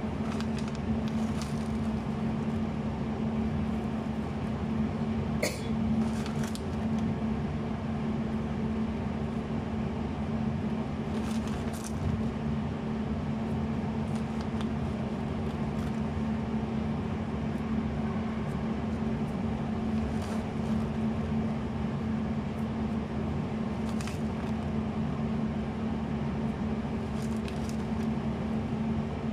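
Steady low machine hum, like a kitchen appliance or fan running, with a few brief faint crinkles of a plastic cheese bag being handled.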